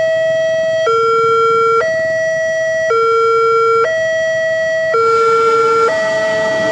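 Indonesian railway level crossing alarm: an electronic two-tone signal alternating high and low, each tone held about a second. It warns that a train is approaching. Near the end the rushing noise of the oncoming train starts to build underneath.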